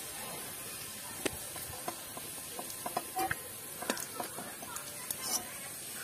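Hot mustard oil sizzling in an aluminium kadai while fried onions are lifted out with a metal spatula, which clicks and scrapes against the pan every second or so.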